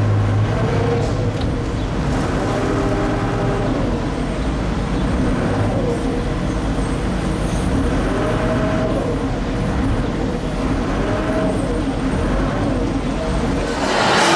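Friendship water-taxi boat's engine running with a steady low rumble, along with the wash of water and wind as it cruises. Right at the end the sound changes to busy restaurant chatter.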